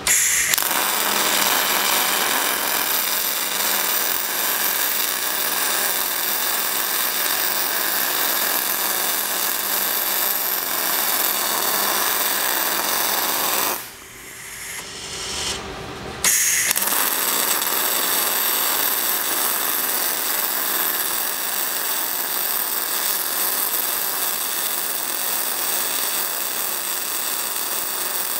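MIG welding arc crackling steadily as a Gullco MOGGY carriage drives the torch along a horizontal fillet weld on a steel beam. The noise breaks off for about two seconds about halfway through, then resumes.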